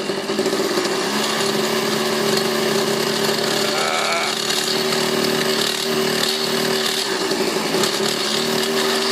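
Go-ped GSR25's small two-stroke engine held at steady high throttle for a burnout, its pitch barely changing.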